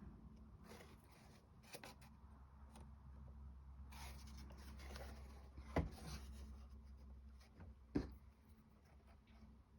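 Quiet handling of small wooden clock-kit parts during gluing: faint rubbing and scraping, with two small knocks about six and eight seconds in.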